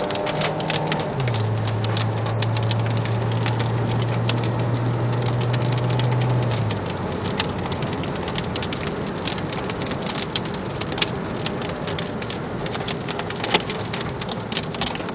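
Hail and heavy rain hitting the roof and windshield of a moving car: a steady wash of rain with many sharp hailstone clicks throughout. A steady low hum sounds for the first several seconds and then stops.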